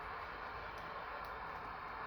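Quiet steady background hiss with a few faint ticks.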